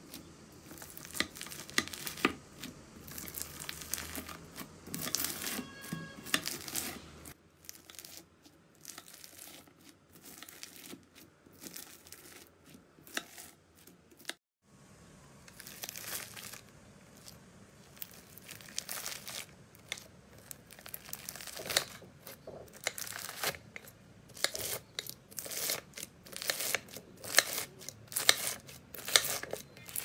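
A knife cutting through blocks of crunchy bead-filled slime, the packed beads crackling and crunching in dense runs of small crackles as the blade presses down, with short pauses between cuts.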